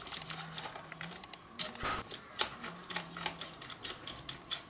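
Irregular metallic clicks and ticks of a hex wrench turning the handlebar clamp bolts on a dirt bike's top triple clamp, with a faint low hum coming and going.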